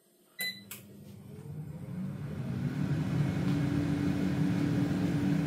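COSORI TwinFry air fryer starting up: a short beep from its start button about half a second in, then its fan starting and running with a low steady hum that grows louder over about two seconds, with a steady low tone joining about three seconds in.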